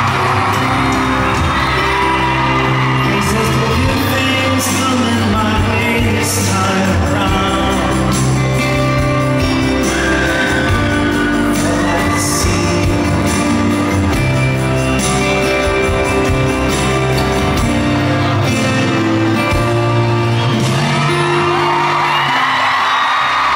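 Live acoustic duet: two acoustic guitars playing with singing, and occasional whoops and shouts from the audience.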